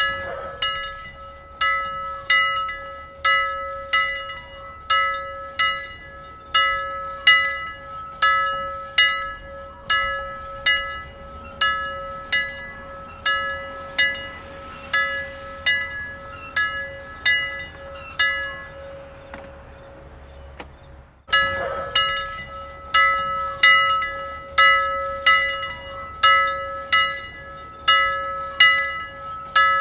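Church bells ringing in steady strokes, about one every 0.8 seconds, over a continuous hum note. About twenty seconds in, the strokes weaken and then break off suddenly. The ringing starts again at full strength a moment later.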